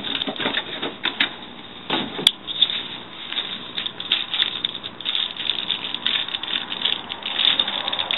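Packaging handled during unboxing: irregular crinkling, rustling and small clicks, with a sharper knock about two seconds in.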